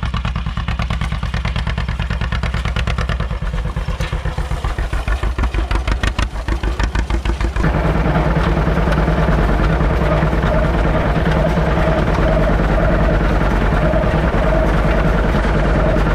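Tractor engine running, its separate firing pulses plainly heard at first. About eight seconds in it picks up into a louder, steadier drone that holds.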